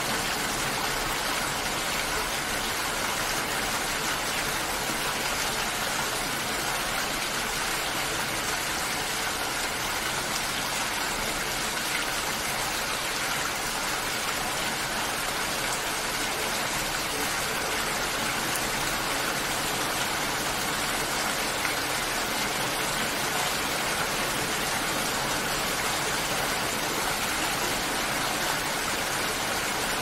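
Steady rain falling, an even hiss that holds without change.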